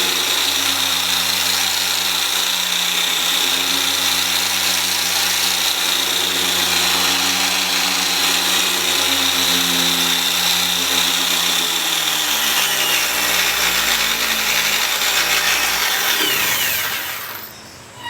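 Electric dual action polisher running steadily while polishing a car headlight lens. Its pitch drops about two-thirds of the way through, and the motor winds down and stops near the end.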